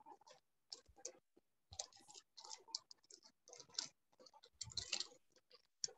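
Faint, irregular clicking and tapping, a scatter of short clicks with no steady rhythm.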